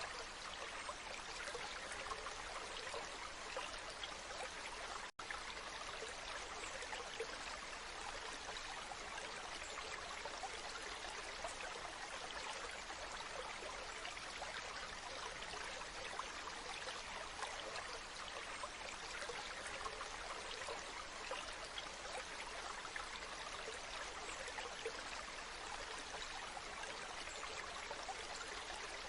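Waterfall: a steady rush of falling water, with a split-second break in the sound about five seconds in.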